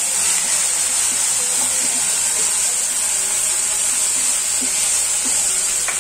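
Ginger and green-chilli paste sizzling steadily in hot oil in a kadai, with a steel spatula scraping the pan now and then as it is stirred.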